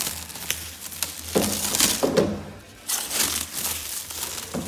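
Clear plastic shrink-wrap crinkling and tearing as it is pulled off a reel of electrical cable, in several irregular bursts.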